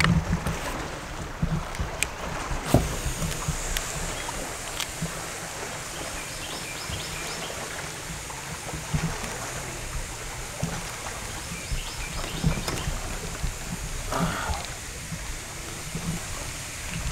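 Small waves lapping and slapping against the hull of a small fishing boat rocked by wake from passing boats, with uneven low thumps and a few sharp clicks.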